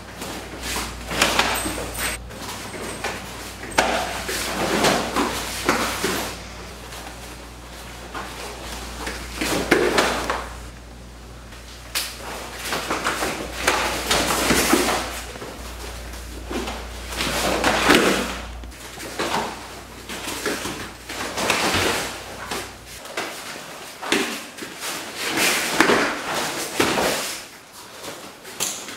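Irregular thuds, stamps and cloth rustling from two karateka in gis striking, grabbing and taking each other down on floor mats.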